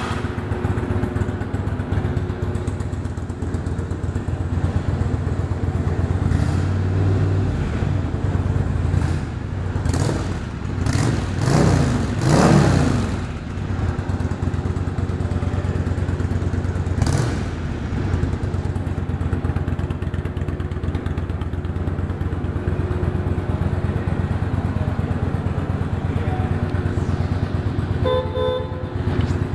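1995 Yamaha XV1100 Virago's air-cooled V-twin engine idling, blipped up and down several times around the middle. Near the end the horn sounds a few short beeps over the idle.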